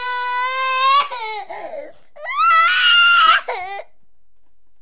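A baby crying: two long cries at a high, fairly steady pitch, the first lasting about a second and a half, the second starting after a short pause and ending near four seconds in.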